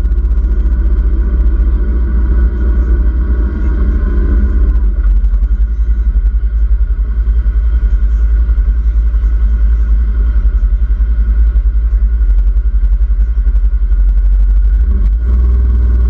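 Engine and drivetrain of an open side-by-side utility vehicle running steadily while driving, under a loud continuous low rumble. The middle of the engine note thins out about five seconds in and fills back in about a second before the end.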